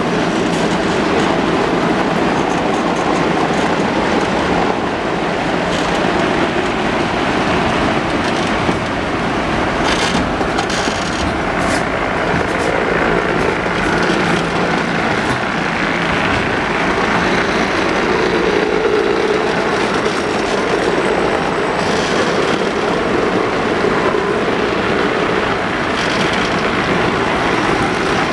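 Opicina tramcar running steadily along its cable-assisted section, steel wheels rumbling on the rails, with a few sharp clicks and rattles about ten to twelve seconds in.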